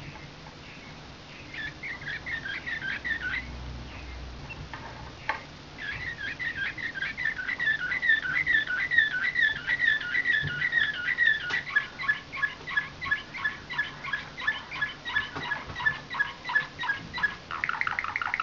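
A slavujar canary (a song canary trained in nightingale-like song) singing. A short phrase comes first, then a long unbroken run of rapid repeated notes. About two-thirds through it settles into an even series of clipped notes at about four a second, and near the end it switches to a faster, lower roll.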